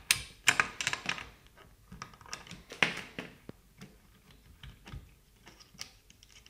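Ratchet clicking in quick runs as a 10 mm nut is undone, heaviest in the first second and again about three seconds in, then fading to scattered lighter clicks.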